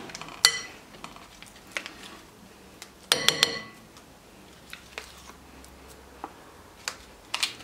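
A knife clinking against a glass mixing bowl and a wire whisk while quark is scraped off it: scattered clicks, with a quick cluster of three ringing clinks about three seconds in.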